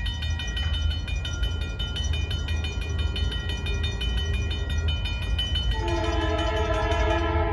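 Railroad grade-crossing bells ringing rapidly over a low rumble. About six seconds in, the lead diesel locomotive's multi-note air horn sounds a steady blast as the train approaches the crossing.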